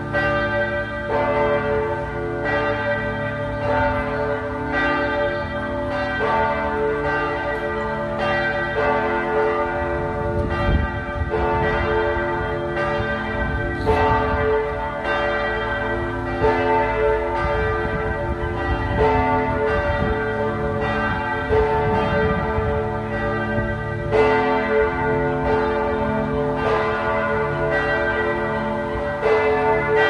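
Bells of the Church of Saint Sava pealing: several bells struck again and again, their tones overlapping and ringing on between strikes.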